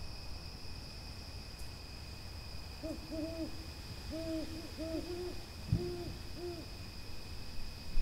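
Owl hooting: about seven short, low hoots in a loose series, with a dull thump partway through, over a steady high-pitched insect drone.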